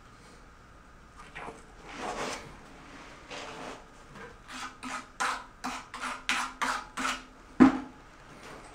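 Scraping strokes of a hand tool against a hard surface, coming faster and more regularly partway through at about two a second, then a single sharp clack near the end.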